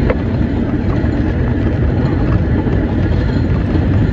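Vintage New York City subway train running along the track, a loud steady rumble of wheels on rails heard from the end of the car, with one sharp click at the very start.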